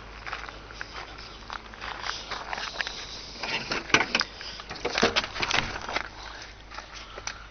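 Footsteps on gravel and handling noise, then a cluster of clicks and knocks about four to five seconds in as a 1974 Cadillac Eldorado's door is unlatched and swung open.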